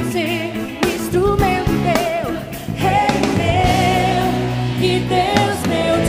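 Live gospel worship song: a woman's lead vocal holding long notes with vibrato over a band with steady drum hits.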